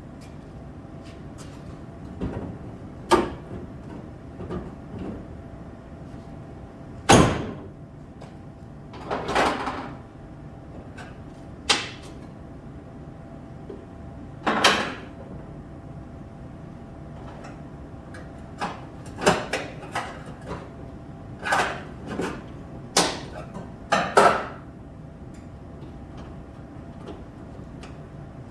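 Irregular knocks and clanks from hand work on the car's sheet-metal body, a dozen or so scattered hits, some with a short scraping tail, over a faint steady hum.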